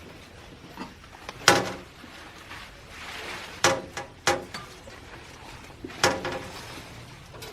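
Shovel digging out a fig tree's root ball: four sharp knocks with short ringing, about two seconds apart, and a scrape through soil between the second and third.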